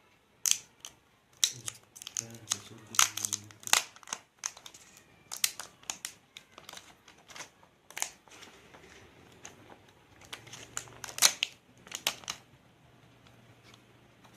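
Plastic protective wrapping being pulled off a new smartphone, crinkling and crackling in irregular bursts, some sharp and loud.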